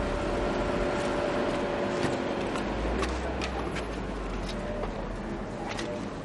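A parked car idling with a low, steady rumble, and a few light clicks in the second half. A held tone fades out over the first few seconds.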